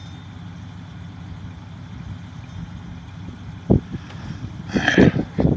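Pickup truck engine running with a steady low rumble. A sharp knock comes a little past the middle, then a cluster of loud thumps and clunks near the end.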